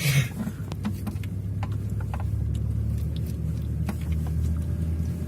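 Toyota Land Cruiser 120's 3.0-litre four-cylinder D-4D turbodiesel running steadily at low revs, with scattered light clicks and knocks over it.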